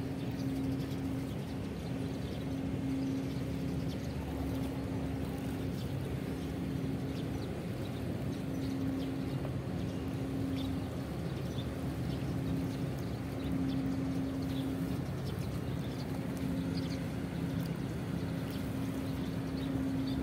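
Low, steady drone of ship engines across the harbour, with a hum that swells and fades every second or two, and faint small splashes and ticks of water near the shore.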